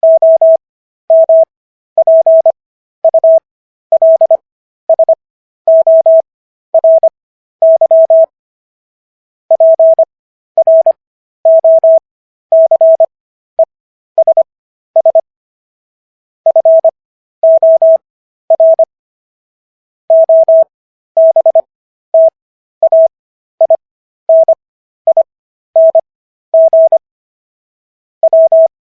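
Morse code sent as a single mid-pitched beep tone keyed on and off in short and long elements. The characters are keyed fast, at 25 words per minute, with extra Farnsworth spacing between characters and words for an overall speed of 15 words per minute.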